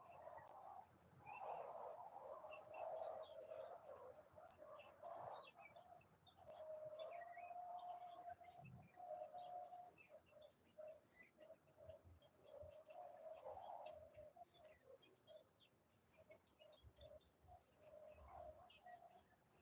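Faint forest ambience: a steady high insect drone, with bird calls coming and going over it.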